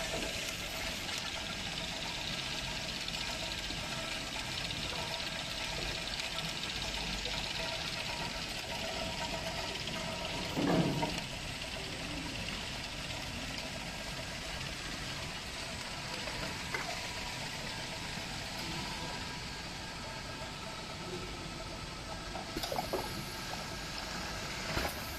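Popping boba production line machinery running: a steady mechanical hum and whir from the conveyors and filling equipment, with a single knock about eleven seconds in.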